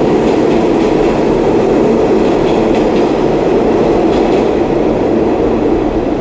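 New York City subway train running through the station: a loud, steady rumble of wheels on rails with faint clickety-clack from the rail joints, easing slightly near the end.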